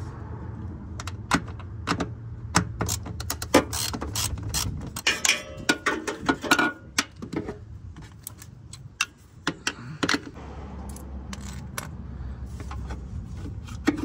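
Hand socket ratchet clicking while 10 mm bolts on the car's underside are loosened, with a quick run of rapid ratchet clicks midway and scattered clinks of the socket and tools against metal. A steady low hum runs underneath.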